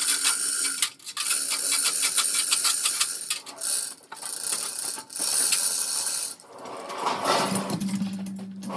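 Rapid metallic clicking and rattling of a mechanism for about six seconds, then a lower steady hum comes in near the end.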